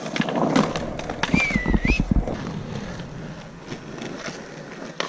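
Skateboard wheels rolling over rough concrete, with a run of sharp clacks and knocks of the board against the ground in the first two seconds.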